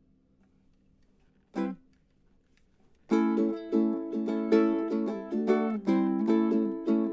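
A ukulele being strummed: after a short quiet pause, one brief strum about a second and a half in, then from about three seconds in steady rhythmic chord strumming.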